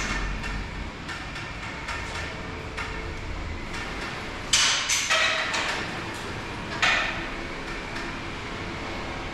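Hammer-type blows on stone masonry: a run of quick knocks, then three louder strikes about halfway through, as loose plaster is chipped off the walls.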